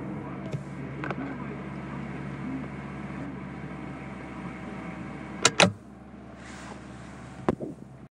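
Suzuki Wagon R FX-S's 660 cc three-cylinder engine idling steadily after a rev. A few sharp knocks cut in: two loud ones close together about five and a half seconds in, and another near the end.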